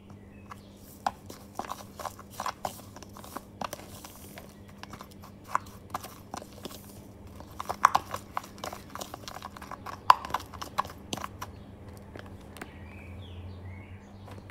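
Metal spoon stirring dry spice mix of chili flakes and ground spices in a plastic measuring jug: irregular clicks and scrapes of the spoon against the plastic, loudest around the middle, stopping a few seconds before the end.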